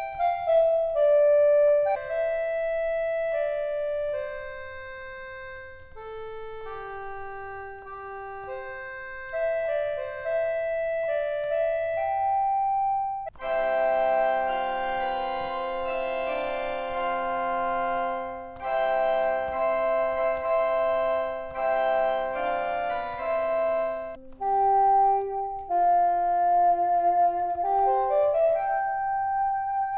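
Instrumental music on an organ-like keyboard sound: a single-note melody, then fuller held chords with lower notes added from about halfway, then the melody again, with notes gliding in pitch near the end.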